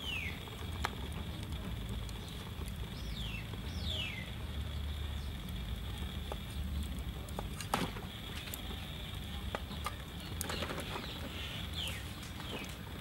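A cleaver knocking now and then on a wooden chopping board as vegetables are sliced, a few sharp knocks with the strongest about 8 s in. Several short falling whistled bird calls come over it, two near the start, one about 3 s in and two near the end.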